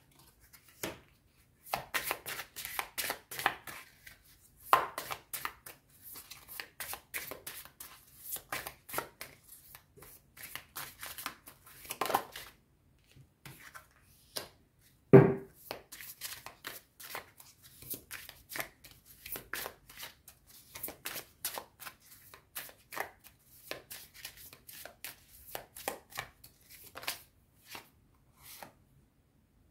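A deck of oracle cards being shuffled by hand: a steady run of quick snaps and flicks of card stock, with cards laid down on a cloth-covered table. One louder, short low sound stands out about halfway through.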